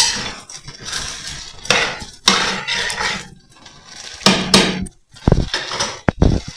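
A spoon stirring and knocking against a cooking pot of nopales, with scattered clinks and scrapes of kitchenware and a few louder knocks near the end.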